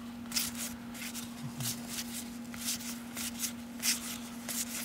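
1992 Topps cardboard baseball cards being slid off a hand-held stack one after another: a quick, irregular series of short papery swipes, about two a second. A steady low hum sits underneath.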